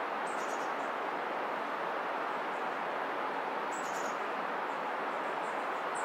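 Steady rush of flowing river water, with a few short high bird chirps about half a second in, around four seconds in, and near the end.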